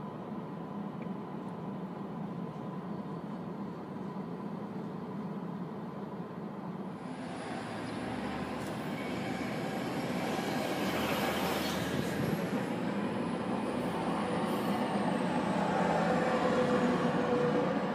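Freight train of hopper cars rolling past with a steady low rumble. From about seven seconds in, a louder rushing train noise builds as a Tri-Rail bilevel commuter train approaches and passes, loudest near the end.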